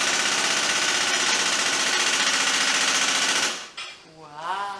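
A hydraulic wheel-play detector plate shaking the front wheel of a Fiat Ducato-based camper van, with a rapid, steady mechanical rattle that stops abruptly about three and a half seconds in. This is the test of the front suspension joints and wheel bearings for play, and the owner is told all is fine.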